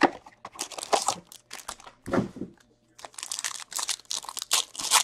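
Hockey card pack being torn open, its foil wrapper crinkling in irregular bursts that grow dense near the end, after packs are pulled from a cardboard hobby box. A duller knock comes about two seconds in.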